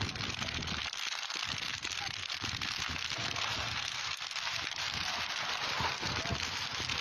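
Dry wheat burning in a field fire, a dense continuous crackling and hissing.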